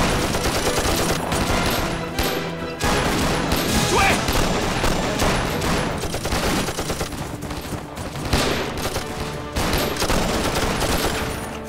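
Dense gunfire from a group of soldiers' rifles firing at once, the shots overlapping in a long ragged volley, with a short lull about three seconds in.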